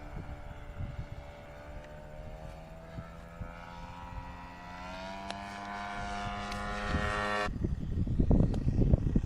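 Radio-controlled model airplane's engine and propeller buzzing in flight, steady at first, then rising in pitch and getting louder. About seven and a half seconds in it cuts off suddenly, replaced by loud, irregular low rumbling.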